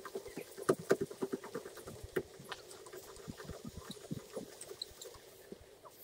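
Roll-out side awning on a camper bus being wound out with a winding rod: rapid, irregular clicking and creaking from the awning's winding mechanism, busiest in the first couple of seconds and thinning out after.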